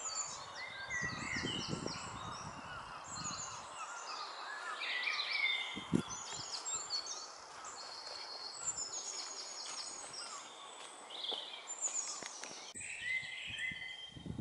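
A chorus of woodland songbirds singing over each other in quick, high chirps and trills, with a few low thuds in the first few seconds.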